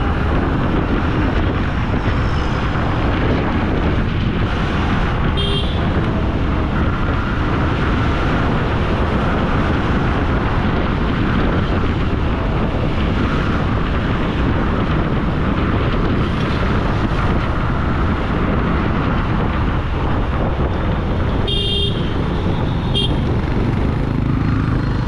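Riding a motorcycle through city traffic: the engine runs steadily under wind and road noise. Short vehicle horn toots sound about five seconds in and twice more near the end.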